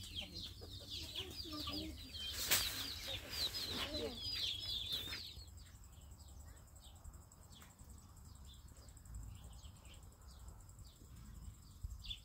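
Chickens clucking, with many high cheeping calls and one sharp knock about two and a half seconds in. About five seconds in the flock sound stops abruptly, leaving a quieter outdoor background with faint bird chirps.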